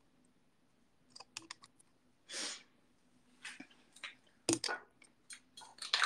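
Phone being handled close to its microphone: scattered faint clicks and taps with a few short rustles, and one sharper click about four and a half seconds in.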